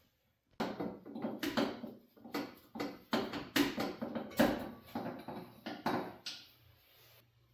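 Irregular knocks and clatter of tools and metal engine parts being handled, going on for about six seconds and stopping near the end.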